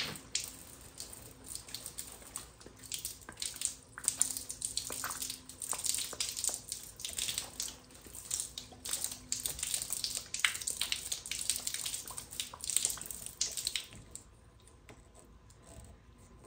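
Water and trapped air sputtering and spraying out of a radiant-heating manifold as the tubing loop is primed, irregular spits and splashes as the air is purged from the line. The spraying stops about 14 seconds in.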